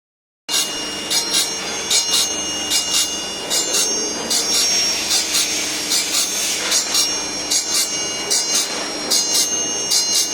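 Grinding machine for high-speed-steel circular saw blades, running and grinding tooth after tooth: a steady motor whine under short, gritty, high-pitched grinding strokes that come in pairs, a little more than one pair a second. The sound starts about half a second in.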